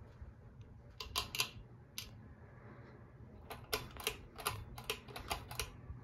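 A ceiling fan running with a faint low hum, overlaid by sharp, irregular clicks: three close together about a second in, one more a second later, then a quick run of about nine near the end.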